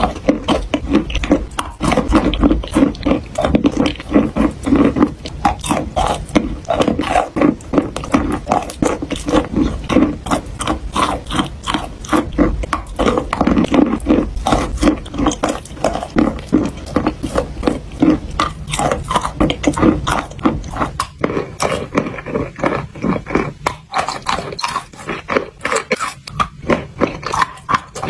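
Dried clay crunching and crackling as it is squeezed and crushed by hand, a dense run of rapid crisp cracks that thins out a little about two-thirds of the way through.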